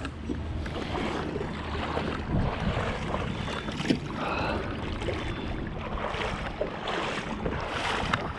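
Wind buffeting the microphone over water lapping and sloshing around a fishing kayak, with a single knock about four seconds in.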